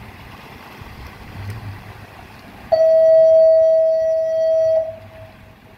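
A single loud, steady tone that starts suddenly, holds at one pitch for about two seconds and cuts off sharply, over low wind and water noise.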